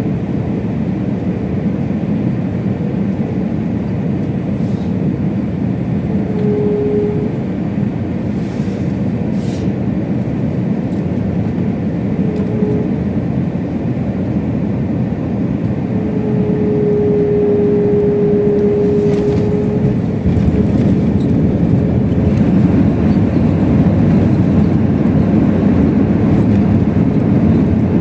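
Airbus A321 cabin noise in flight: a steady rush of engines and airflow, with a steady whine that comes and goes a few times. About two-thirds of the way in, the noise grows louder and deeper.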